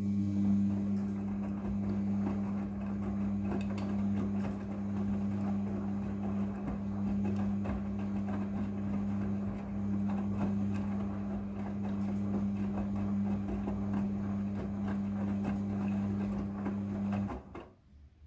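Midea front-loading washing machine running with a steady electrical hum and water rushing through it, which stops abruptly near the end.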